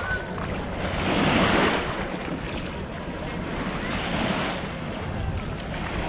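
Small waves washing up onto a sandy shore, swelling twice, about one and a half seconds in and again about four seconds in, with wind on the microphone.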